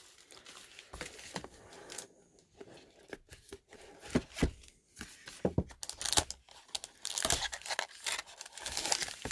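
Hands opening a cardboard trading-card box, a 2019 Obsidian Encased football box: irregular tearing and scraping of cardboard with small handling knocks, getting busier about halfway through. Near the end the foil pack inside crinkles as it is lifted out.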